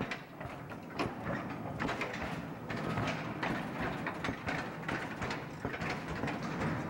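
Narrow-gauge mine tramway cars clattering on the rails: irregular metallic knocks and rattles of wheels, couplings and open steel-framed seats.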